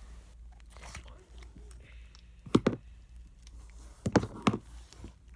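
Plastic slime containers being handled, giving sharp clacks: a pair about two and a half seconds in, then three more about a second and a half later.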